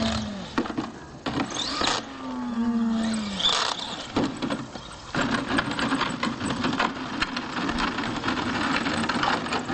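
Radio-controlled monster truck's motors and gears whining, the pitch falling twice as it slows. From about five seconds in they run steadily with a rapid chatter while the truck holds a wheelie on its rear tyres.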